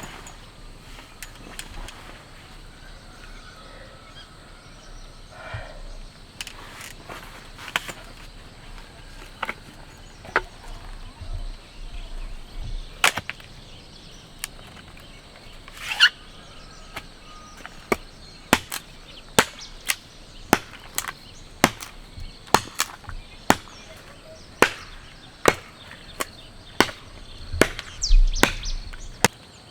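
Repeated sharp knocks over a steady hiss. They come scattered at first, then settle into a steady run of about three every two seconds in the second half.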